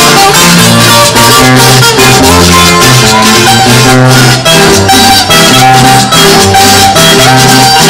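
A carranga band playing an instrumental break live: strummed acoustic guitars and a plucked lead melody over bass notes that step from chord to chord, with a rattling percussion keeping an even beat.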